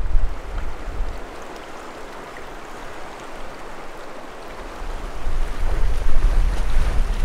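Clear, shallow mountain river rushing steadily over a pebble bed, with wind buffeting the microphone at the start and again in the last couple of seconds.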